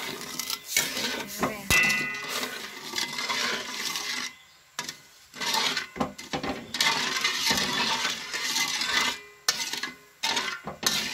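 Metal spatula scraping and stirring sugar syrup around a metal wok in quick, irregular strokes with brief pauses, working the sugar, water and salt together so the sugar dissolves.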